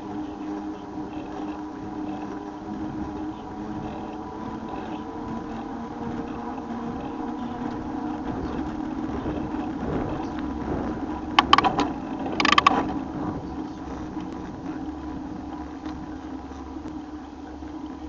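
Running noise from a bike in motion: a steady hum with several held tones over a rushing haze. Two short, sharp clattering bursts come about eleven and twelve seconds in.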